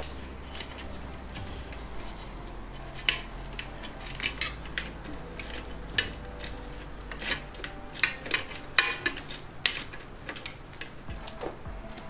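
Metal tools clicking and clinking against a bicycle's front derailleur, frame and chain as a hex key and screwdriver are worked on the derailleur: irregular sharp metallic taps and rattles, the loudest about three and nine seconds in.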